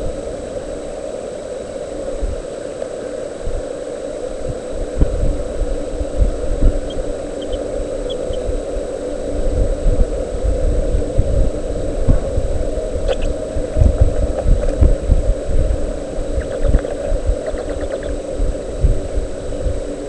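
Steady low hum with irregular low thumps and rumbles that grow stronger through the middle, and a few faint short high sounds.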